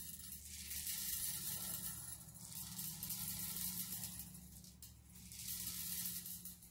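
Steel BBs poured into the loading port of a Daisy Red Ryder BB gun's magazine: a hissing rattle that comes in three surges.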